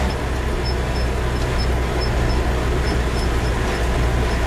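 Military truck on the move, heard from inside: a steady low engine and road rumble, with a faint high chirp that recurs irregularly.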